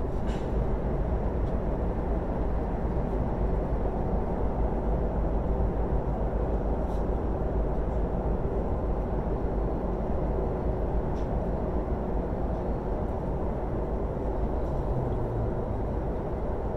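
Steady rumble of an ICE high-speed train running at speed, heard from inside the passenger car, with a few faint ticks.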